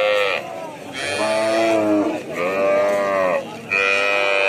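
Young calf bawling: four loud calls in a row, each about a second long, with short pauses between them.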